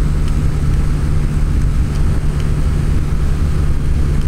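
Honda Click 125i scooter engine with an aftermarket JVT pipe, held at steady high revs near 8,700 rpm at full throttle, around 120 km/h. Heavy wind rumble on the microphone from a strong wind runs under it.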